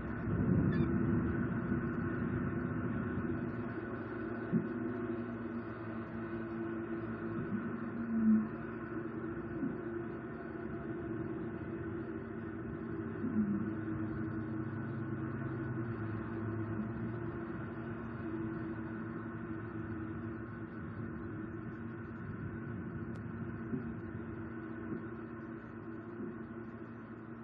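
Steady low background hum made of several level tones, with a few faint short knocks or rustles now and then.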